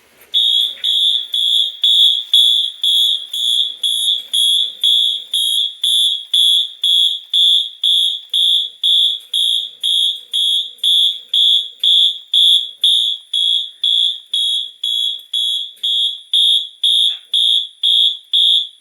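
Siemens MTH75R fire alarm horn strobe sounding a steady high-pitched electronic tone in march-time pulses, about two blasts a second, coded by a Notifier AFP-200 panel. It is the general alarm set off by a manual pull station.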